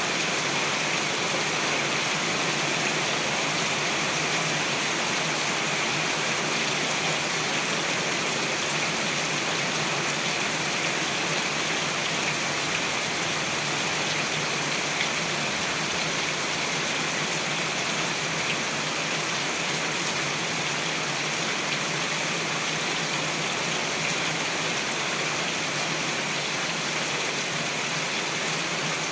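Heavy rain falling on the leaves of dense shrubs and trees, a steady, even hiss of countless drops that does not let up.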